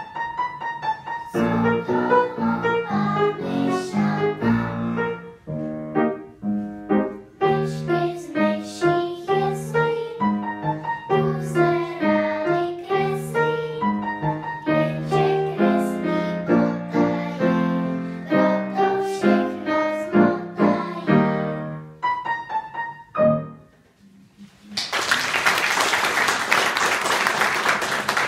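Piano playing a melodic piece that ends about 23 seconds in; after a short pause the audience breaks into applause.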